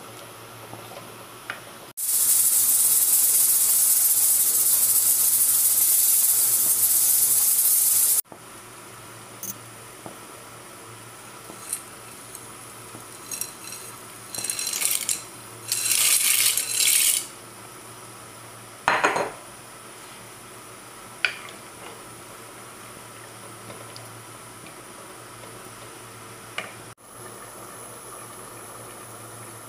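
Cooking in a metal pot: a loud, steady hiss for about six seconds, then dry fusilli pasta poured into the pot in a few short rattling bursts, followed by one sharp knock.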